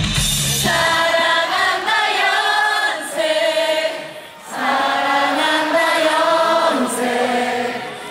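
A large crowd singing a melody together without accompaniment, after the bass-heavy backing music drops out under a second in. The singing breaks off briefly about halfway through and again near the end.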